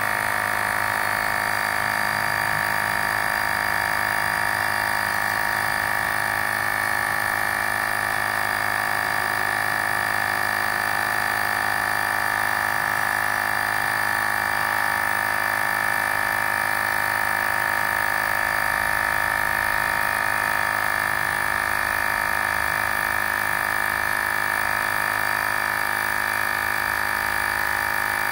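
Portable rechargeable tire inflator's small electric compressor running steadily at an even pitch as it pumps air into a car tire.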